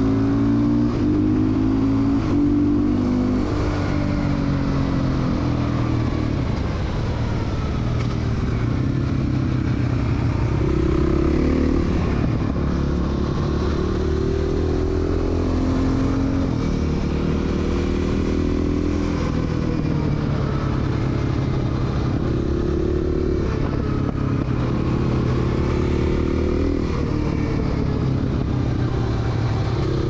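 2014 Husaberg FE501's single-cylinder four-stroke engine running under way, the revs rising and falling again and again as the rider accelerates and backs off.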